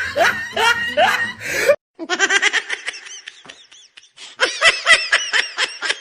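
Laughter, a series of quick rhythmic ha-ha pulses. Music runs under it at first and cuts off suddenly about two seconds in; after a short gap the laughing resumes, louder and faster near the end.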